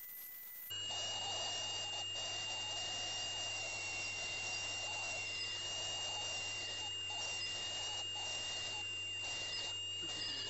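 PerioScan ultrasonic dental scaler running, its tip on a tooth root under water: a steady high whine over a rough hiss, after a short dip in level in the first second.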